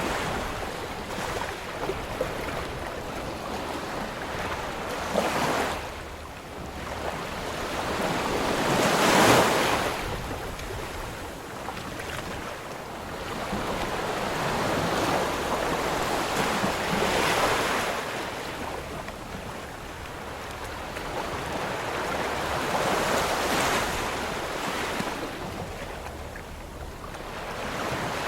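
Ocean surf: waves breaking and washing in, a rushing noise that swells and fades every few seconds, the loudest surge about nine seconds in.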